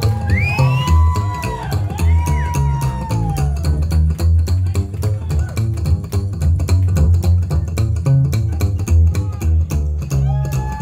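Live rockabilly band playing an instrumental stretch: an electric guitar bends and holds notes in the first couple of seconds over a slapped upright bass and drums, then the bass and drums carry a steady, driving rhythm.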